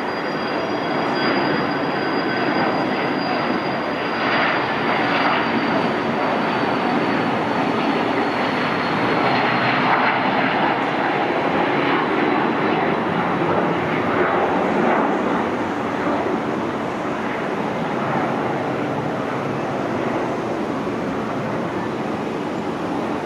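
Twin turbofan engines of a 1998 Cessna 550 Citation Bravo business jet at takeoff power, through the takeoff roll, liftoff and climb-out: a steady jet roar with a thin high whine that slowly falls in pitch over the first half. The roar is loudest around the middle, as the jet lifts off.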